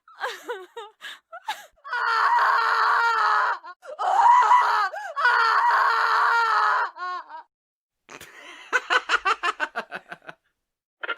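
Stock sound-effect recordings of human voices: a few short laugh bursts, then three long high-pitched screams of about two seconds each, followed after a brief gap by a rapid, pulsing cackle of laughter.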